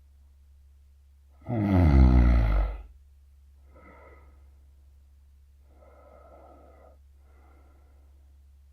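A sleeping man snoring heavily: one loud snore lasting about a second, starting about a second and a half in, then three much softer breaths. A steady low hum sits underneath throughout.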